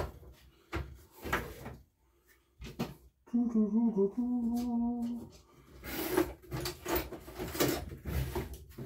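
A man hums a short tune for about two seconds mid-way, between scattered knocks and clatter of tools being rummaged through while hunting for an Allen key.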